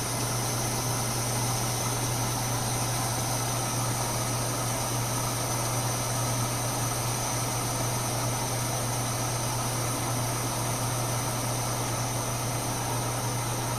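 MSR Whisperlite International liquid-fuel stove burning white gas at medium flame under a pot of water: a constant, even rushing noise with a steady low hum, unchanging throughout.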